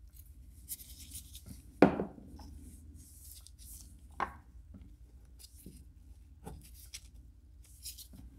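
Gloved hands handling a wooden lure body, a glue bottle and lead weights as the weights are glued into the drilled holes: repeated rubbing and rustling, with a sharp knock about two seconds in and a lighter one a little after four seconds.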